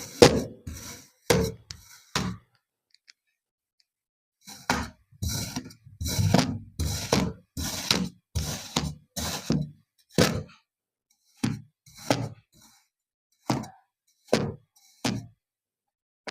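Kinetic sand being cut with a knife: a series of short, crunchy cutting strokes, one after another. They stop for about two seconds near the start, come in quick succession, then grow more spaced out toward the end.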